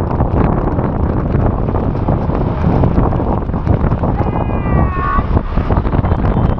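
Wind buffeting an action camera's microphone: a loud, continuous, gusty rumble. A brief pitched call cuts through about four seconds in.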